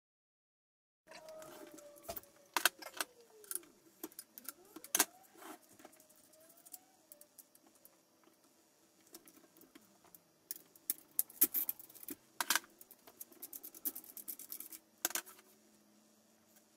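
Small metal gun parts and tools clicking and clinking as a folding stock adapter is fitted to a rifle, starting about a second in, with faint squeaky rubbing in the first few seconds.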